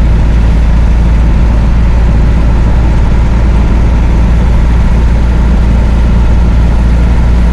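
Vehicle engine and road noise heard from inside the cab while cruising at a steady speed: a loud, steady low drone.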